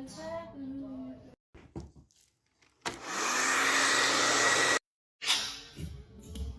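A small electric motor blowing air, like a hair dryer or blower. It starts about three seconds in with a low hum that rises, then runs steadily with a rushing sound and a thin whine for about two seconds before cutting off abruptly.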